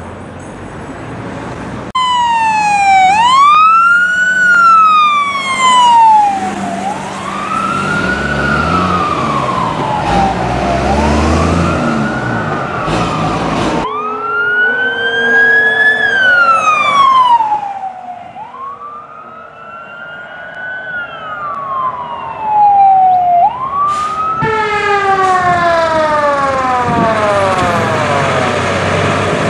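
Fire truck sirens wailing in slow rising-and-falling sweeps, one responding unit after another. Near the end a siren winds down in a long falling sweep.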